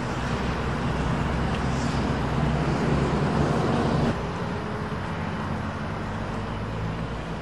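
Road traffic running steadily, with a vehicle engine's hum growing louder toward the middle and then dropping off suddenly about four seconds in.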